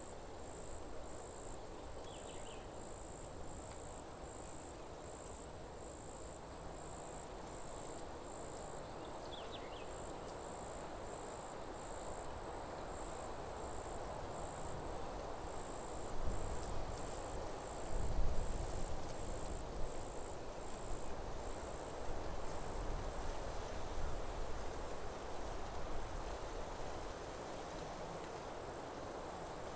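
Forest ambience dominated by insects chirping in a steady, evenly pulsing high trill over a soft background hiss, with a couple of short chirps early on. Low rumbling comes and goes through the middle, carrying the loudest moments.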